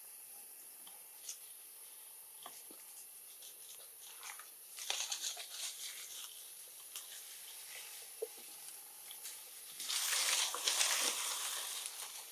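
Dry leaf litter rustling and crinkling as macaques move over it, in scattered crackles, with a louder stretch of rustling about ten seconds in.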